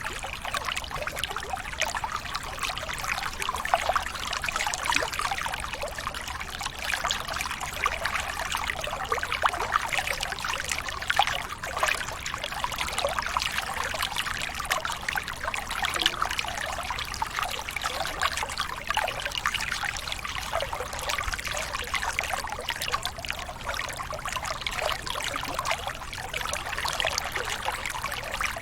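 Flowing water trickling and splashing steadily, full of small bubbling crackles.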